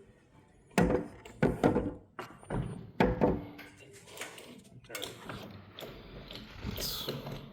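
Irregular clunks and knocks of a jack being set and worked under a heavy LVL beam to raise it.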